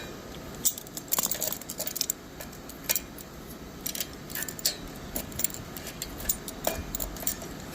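Irregular metallic clicks and clinks from locking pliers (vise grips) being turned on a steel lock washer on a dolly wheel axle, working the stuck washer up the axle.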